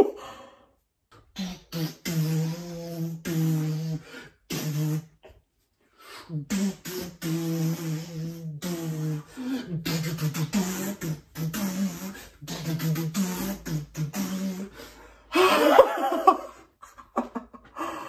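A man vocalizing rhythmically with his mouth, like a sung rock riff: short held notes at much the same low pitch, broken by brief gaps, with a louder outburst near the end.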